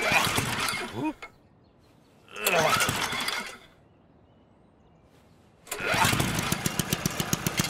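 Petrol lawn mower being pull-started three times: the first two pulls of the starter cord whirr and die away, and on the third the engine chugs in rapid, even beats.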